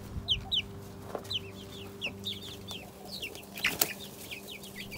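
Young chicks peeping: many quick, short chirps that fall in pitch, scattered throughout, with a single sharp knock a little before the end.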